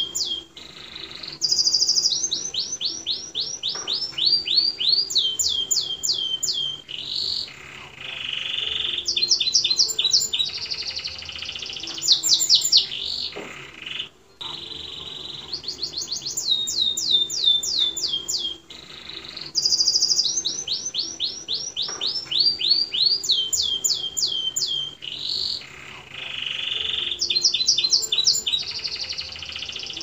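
Domestic canary singing a long song: runs of rapidly repeated falling whistled notes alternating with lower, buzzy rolling trills, with one brief break about halfway.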